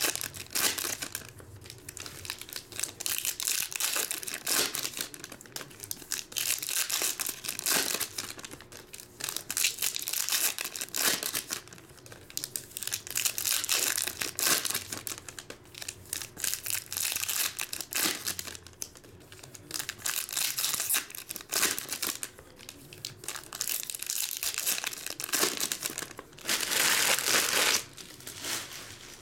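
Foil trading-card pack wrappers crinkling in repeated irregular bursts as packs of Panini Hoops basketball cards are handled and torn open by hand, loudest near the end.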